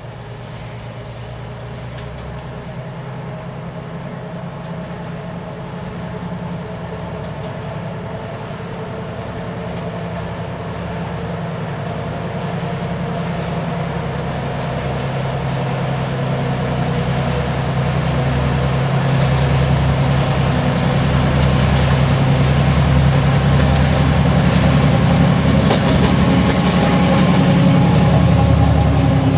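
2TE10M diesel locomotive's 10D100 two-stroke opposed-piston diesel engines working hard under load and growing steadily louder as it approaches with a freight train: the deep, roaring drone that railfans call 'medved' ('the bear'), thrown out together with a heavy plume of exhaust smoke. Sharp clicks from the train are heard over the drone in the second half.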